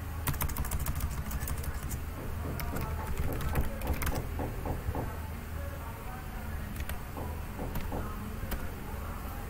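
Computer keyboard typing: a quick run of keystrokes for the first four seconds or so, then a few scattered clicks near the end, over a steady low hum.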